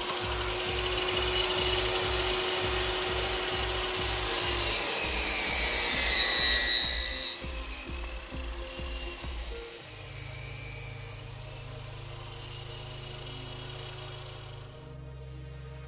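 Table saw running and ripping wood, its whine dropping in pitch under the cut about five seconds in, then falling away about seven seconds in. Background music with a steady beat runs underneath and carries on alone afterwards.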